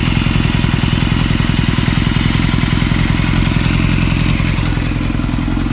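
Yamaha YZF600R Thundercat's inline-four engine running steadily with fresh oil, left running to check for leaks after an oil and filter change.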